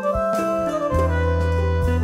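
Instrumental background music: a melody stepping down in pitch over a held bass note that comes in about a second in.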